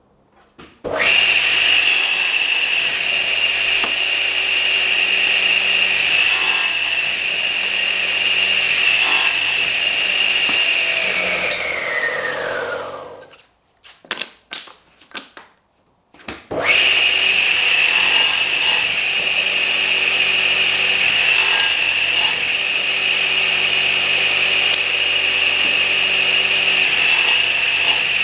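A high-speed electric woodworking power tool running with a steady high whine. About twelve seconds in it is switched off and spins down, falling in pitch; a few knocks follow, and it starts up again about seventeen seconds in.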